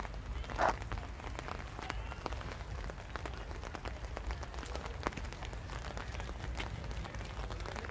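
Rain falling, with scattered drops ticking sharply on hard surfaces over a steady low rumble. A short, louder sound comes about half a second in.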